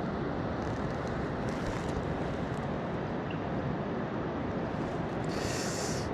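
Steady rushing of a mountain stream's flowing water, with a brief higher hiss near the end.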